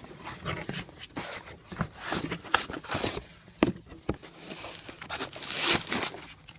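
Hands handling objects and packaging: a string of irregular clicks and knocks with rustling, and a longer rustle near the end.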